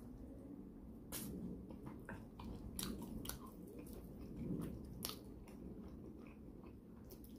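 A person chewing a mouthful of pork leg in gravy and buckwheat dhindo, close to the microphone, with short wet clicks and smacks scattered through.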